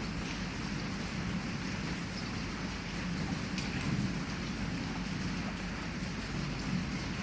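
Heavy rain falling steadily on a window, with a low rumble underneath and a few sharper drop ticks.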